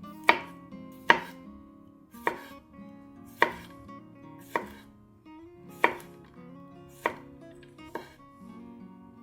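Kitchen knife cutting down onto a cutting board in slow, single strokes, about one a second, eight cuts in all.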